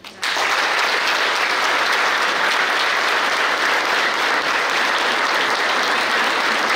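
A crowd of adults and children applauding: the clapping breaks out suddenly just after the start and stays steady.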